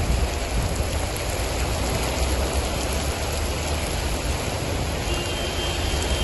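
Heavy rain pouring down on a flooded street: a steady hiss of rain and running water over a low rumble.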